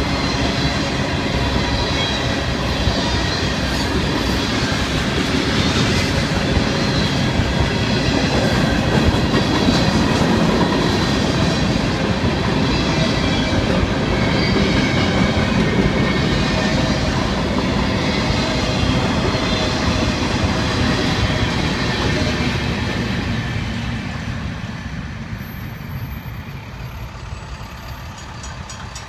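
Freight train's cars rolling past over a grade crossing: a steady rumble and clatter of steel wheels on the rails. It fades over the last five seconds or so as the end of the train goes by.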